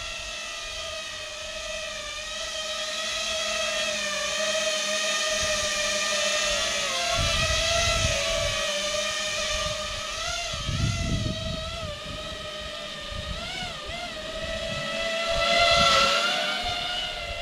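A 4S FPV quadcopter's MT2204 2300 kV brushless motors and propellers whining steadily as it hovers low under the load of a cinema camera. The pitch wavers up and down with throttle corrections, and the sound grows louder near the end as the drone comes close.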